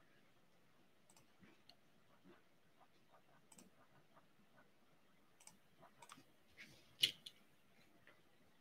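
Near silence with a few faint, scattered clicks and taps; the loudest is a sharp click about seven seconds in, followed by a smaller one.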